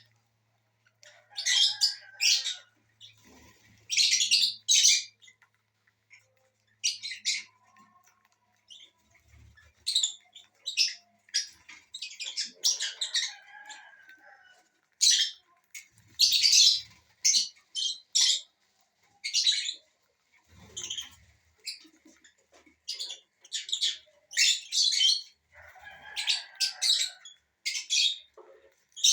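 Small aviary parrots (lovebirds, cockatiels and Indian ringnecks) chirping and squawking in repeated short, shrill bursts with brief pauses between.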